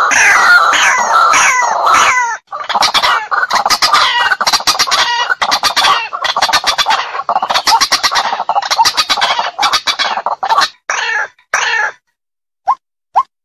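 White-breasted waterhen (ruak-ruak) giving its loud, harsh territorial calling series, used as a lure to draw a rival into a fight. The calls run as rapid repeated phrases, break off briefly near the end, and resume as short single notes about two a second.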